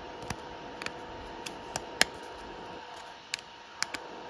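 Scattered light clicks and ticks of a 3D-printed plastic twist-lock disc being twisted and handled in the fingers, the sharpest about two seconds in, over a faint steady hum.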